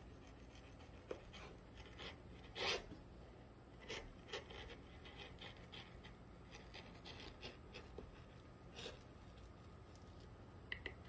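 Hand carving tool cutting and scraping into eucalyptus tree bark: faint, irregular scratchy strokes, with one louder cut a little under three seconds in.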